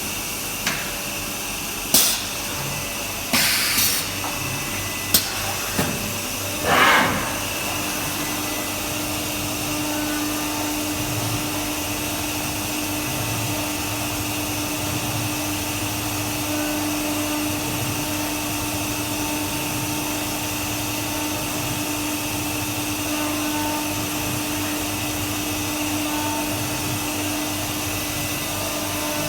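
CNC router milling maple wood: a steady machine whir, with a few sharp knocks and short bursts in the first seven seconds. A steady hum joins the whir from about eight seconds in and holds to the end.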